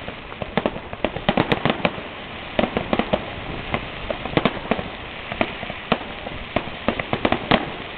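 Fireworks going off: a rapid, irregular string of sharp crackling pops, bunching into dense clusters about a second in, around four and a half seconds in, and near the end, over a steady hiss.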